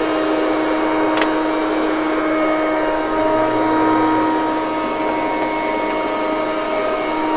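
Hoover Conquest wide-track commercial upright vacuum running steadily over carpet, a continuous motor whine over a rushing hiss of air. There is one brief click about a second in.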